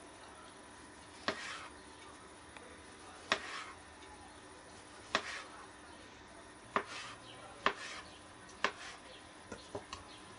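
Kitchen knife slicing tomatoes on a plastic cutting board: a sharp knock of the blade on the board every second or two, each followed by a short soft hiss, with a few lighter taps near the end.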